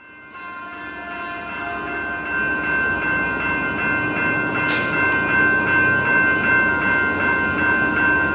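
Level-crossing warning bell ringing steadily, about two strikes a second, over the low rumble of an approaching Metrolink commuter train that grows louder, with a brief hiss about halfway.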